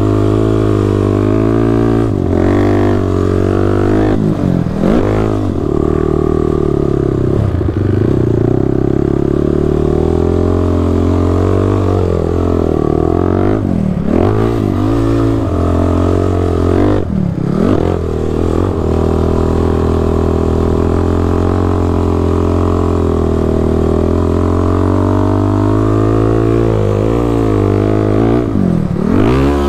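Sport quad ATV engine running hard in sand. Its pitch dips and climbs back about five times as the throttle is let off and opened again or a gear is shifted.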